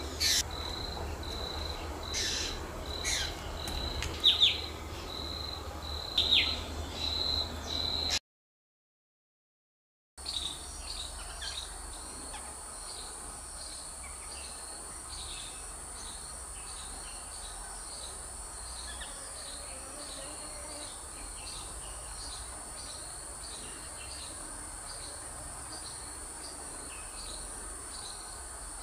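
Insects and birds outdoors: a steady high insect trill with sharp bird calls over it, the loudest about four and six seconds in, broken by two seconds of silence about eight seconds in. After the gap, a steady high insect whine with a chirp repeating about twice a second.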